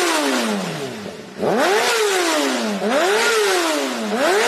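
Superbike engine revving up sharply and falling back, about three times in a row, each rise quick and each fall slower.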